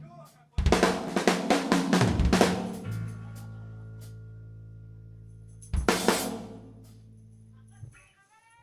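Live rock band ending a song: a fast run of drum strokes, then a held bass-and-guitar chord ringing out, one last drum-and-cymbal hit about six seconds in, and a sudden stop near the end.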